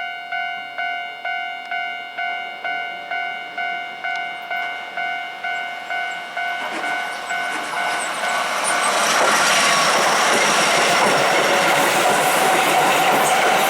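A Japanese level crossing's electronic warning bell clangs at about two strikes a second. About eight seconds in, a Keihan electric train reaches the crossing and passes over it. The train's wheel and running noise, louder than the bell, then covers it.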